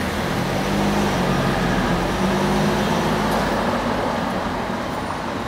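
Cars driving past over a cobblestone street: a low engine hum with tyre rumble, swelling in the first seconds and easing off toward the end.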